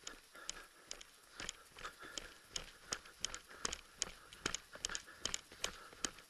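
Footsteps crunching through dry leaf litter on a trail, irregular crunches and snaps about two or three a second, fairly quiet.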